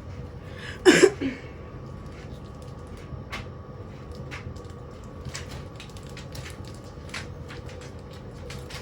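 A loud knock about a second in, followed by scattered light clicks and taps over a faint steady hum.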